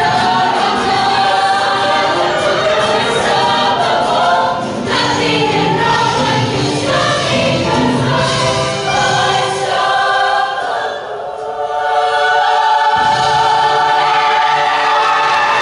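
A mixed show choir of young men and women singing together in harmony, with a brief drop in volume about eleven seconds in.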